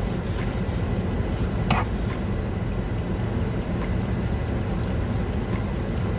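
Steady low rumble heard inside a car, with scattered small clicks and a brief squeak about two seconds in.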